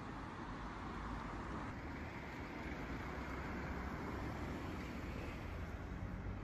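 Road traffic going by on a multi-lane street: a steady noise of car tyres and engines that swells slightly in the middle as vehicles pass.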